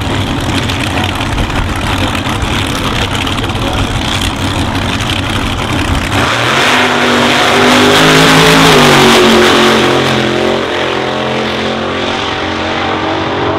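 Supercharged slingshot dragster's engine running rough and loud on the start line, then launching at full throttle about six seconds in. The note climbs in pitch to its loudest a couple of seconds later, then drops and eases as the car runs away down the drag strip.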